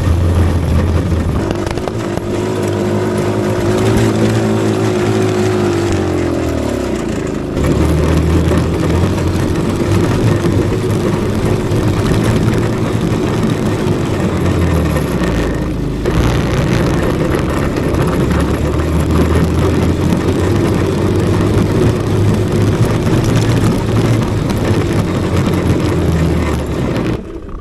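Small petrol engine of an off-road vehicle running as it is ridden, the revs dropping off and picking back up a few times; the sound stops abruptly near the end.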